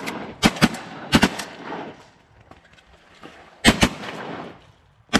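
Volley of shotgun fire from several duck hunters: about six sharp shots in quick pairs near the start, around a second in and near four seconds in, each trailing a short echo, with one more shot at the very end.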